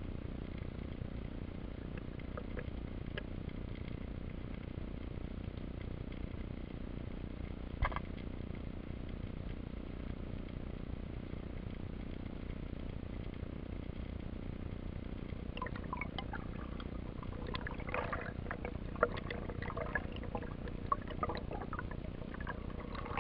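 Underwater sound of a camera housing in the sea: a steady low water rumble, with a single sharp click about eight seconds in. From about sixteen seconds on comes a burst of bubbling and clicking as air bubbles rise around the speared fish.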